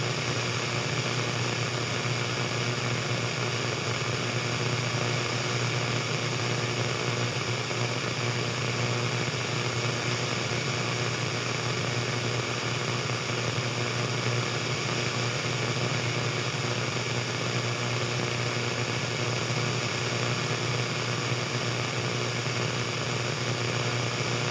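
Radio static: a steady, unbroken hiss with a low hum underneath.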